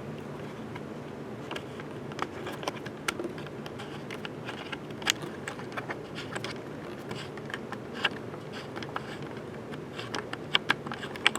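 Hunter Summer Breeze 52-inch ceiling fan running steadily, a low whooshing hum of moving air and motor. Scattered light clicks and taps sound over it, more of them near the end.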